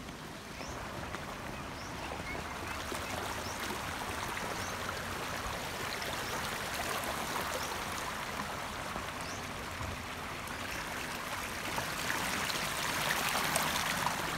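Shallow spring-fed stream babbling steadily over rocks and pebbles, growing louder about twelve seconds in.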